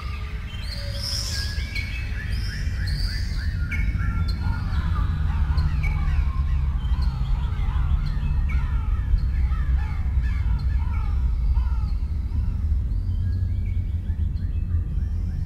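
A dense chorus of many birds calling, with short falling calls overlapping one another, over a steady deep rumble that swells during the first few seconds.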